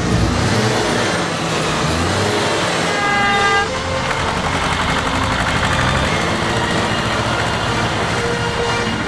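Tractor engine running steadily and loud, with a single short horn toot about three seconds in.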